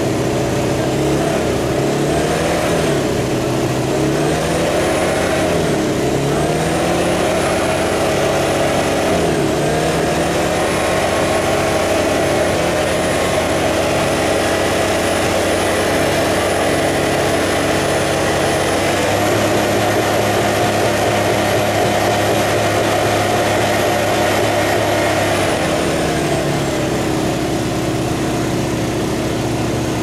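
An engine running, revved up and down several times at first, then held at a steady speed that rises a little later on and eases off near the end.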